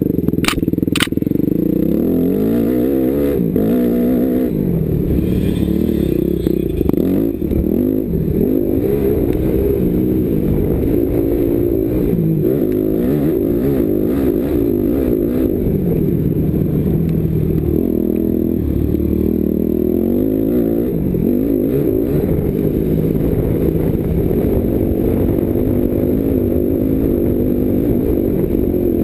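Yamaha YZF250 four-stroke single-cylinder motocross engine under hard riding, revving up and dropping back again and again through the gears. Two sharp ticks come in the first second.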